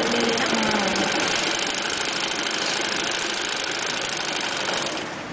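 Black domestic sewing machine running, stitching a seam through cotton fabric with a steady rapid clatter of needle and mechanism; it stops about five seconds in.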